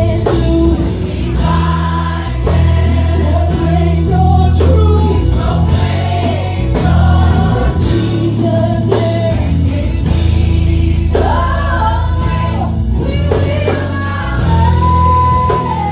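Gospel worship music: voices singing together over a band with a strong, sustained bass line.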